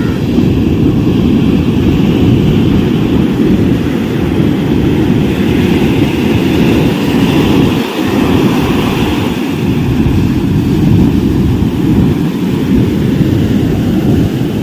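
Steady low wind rumble on the microphone mixed with the wash of waves on the beach.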